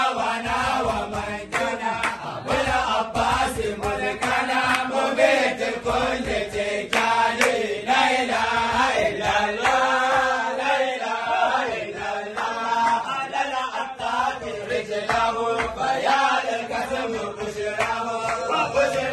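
Group of men chanting a devotional song in Arabic together, voices continuous throughout.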